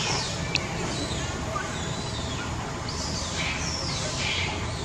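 Outdoor birds calling, repeated high falling notes in short groups, over a low steady hum, with a single sharp click about half a second in.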